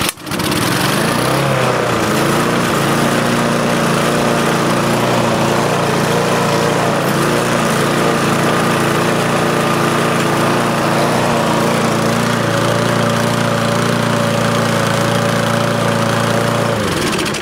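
Briggs & Stratton 35 Classic lawn mower engine running steadily at a constant speed, warmed up but still running a little bit rough. It stops shortly before the end.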